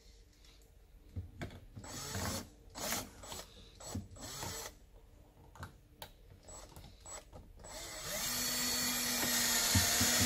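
Cordless drill-driver driving a small screw through a metal hook bracket into the wooden sofa frame: the motor spins up about eight seconds in and runs steadily for the last two seconds. Before that, light knocks and clicks of the screw and bracket being handled.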